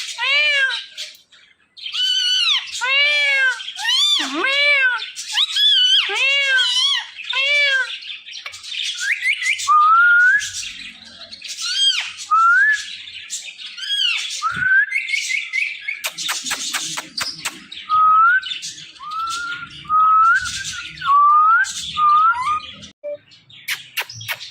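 A parrot whistling and calling: first a quick run of arching whistled notes, then short rising whistles about once a second, with a brief patch of clicking near the middle.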